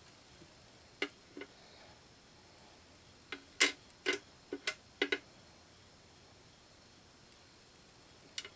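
Tiny plastic figure pieces clicking and tapping as they are set down in a clear plastic display case: about ten light, sharp clicks, a couple a second in, a quick cluster between three and five seconds in, and one more near the end.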